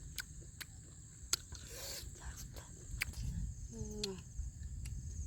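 Mouth sounds of someone eating: scattered sharp clicks of chewing and lip smacking, with a short murmured 'mm' about four seconds in, over a steady high insect drone.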